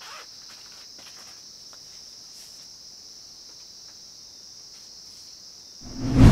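Crickets chirring steadily at a high pitch, with a few faint rustles. Near the end, a loud, deep drum boom like a timpani hit cuts in as a dramatic music sting.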